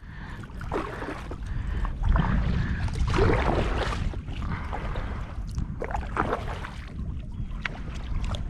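Water sloshing and splashing around a moving kayak, with wind rumbling on the microphone.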